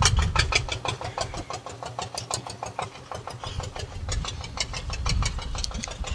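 A small vehicle engine running, with an even rapid ticking of about six to seven beats a second over a low rumble.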